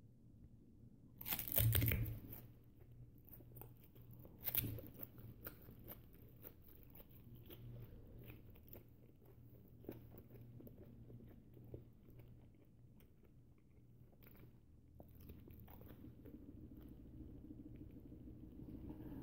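A person chewing a whole banana with its peel on, mouth close to the microphone: two louder crunches, the first about a second and a half in and the loudest, another near five seconds, then steady chewing with small clicks.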